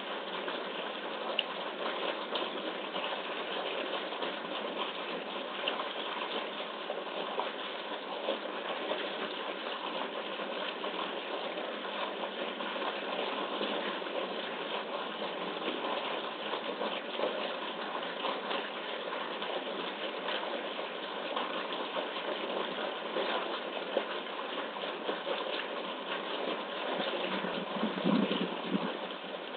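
Steady rushing water noise from a zoo polar bear pool, heard through a live webcam's microphone, growing a little louder and deeper near the end.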